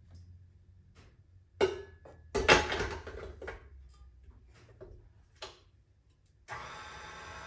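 A steel mixing bowl clunking and knocking as it is set and locked onto a tilt-head stand mixer, the loudest knocks a couple of seconds in. Near the end the mixer's motor starts and runs with a steady whine on low speed, mixing the cake batter.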